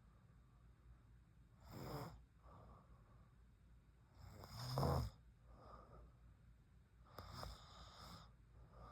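A sleeping woman snoring: three snoring breaths about two and a half to three seconds apart, the middle one the loudest.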